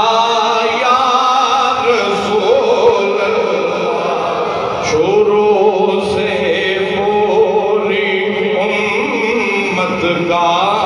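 A man's voice chanting a melodic religious recitation into a microphone, holding long, wavering notes that glide up and down in pitch.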